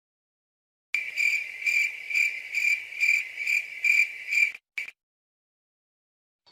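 Cricket chirping sound effect: a steady high chirp pulsing about twice a second, starting about a second in and stopping after roughly three and a half seconds.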